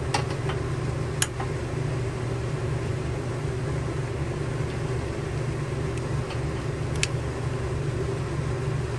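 A steady low machine hum, with a handful of sharp clicks: a few in the first second or so and one about seven seconds in.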